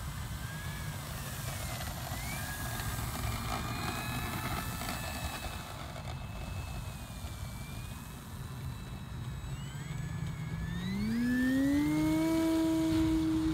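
Electric motor and propeller of a large RC Cessna 150 model whining faintly at low throttle while it taxis. About ten seconds in it throttles up for the takeoff run: the whine rises quickly in pitch, then holds steady and louder.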